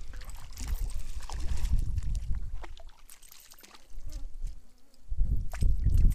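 Lake water sloshing and splashing around someone wading in the shallows among reeds, over an uneven low rumble that drops away for a couple of seconds in the middle.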